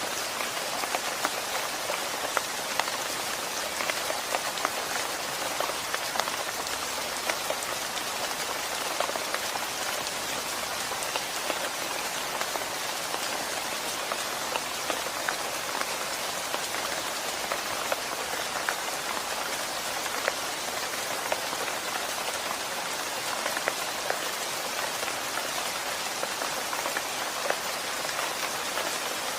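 Steady rain falling, an even hiss with many sharp individual drops landing close by.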